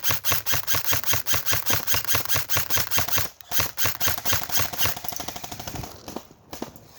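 Fast, regular mechanical clicking, like a ratchet, about six or seven clicks a second. It breaks off briefly about halfway through and turns into a quicker, fainter rattle near the end.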